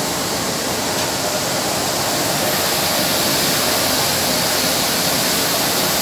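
Rice mill machinery running, a loud, steady rushing noise that grows a little in the first second.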